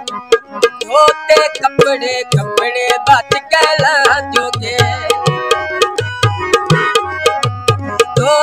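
Tabla and harmonium playing a Punjabi mahiya folk tune: quick, steady tabla strokes with deep bass-drum booms under the harmonium's sustained chords. A man's voice sings a short phrase near the middle.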